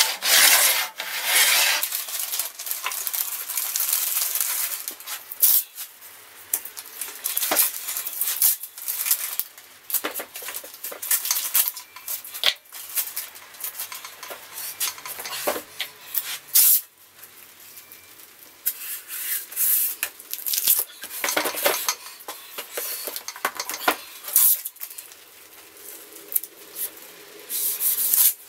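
Hand-work noises on a wooden table saw fence: rubbing and scraping on the wood, paper rustling, and scattered light knocks and clicks. Toward the end, masking tape is pulled from its roll and pressed on.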